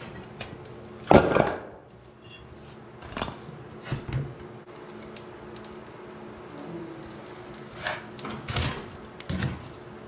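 A Blaze King wood stove being worked: sharp metal clunks and knocks as the firebox door is unlatched and swung open and a poker is worked among the coals, the loudest clunk about a second in. A faint steady hum runs underneath.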